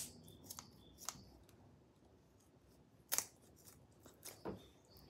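Kitchen scissors snipping through raw chicken: a few short, sharp snips, with a pause of about a second and a half in the middle.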